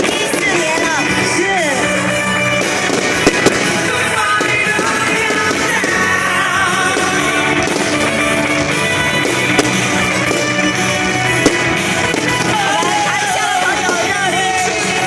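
Pop or rock music with a singing voice, over which a few sharp firework bangs go off: two close together about three seconds in, then single ones later.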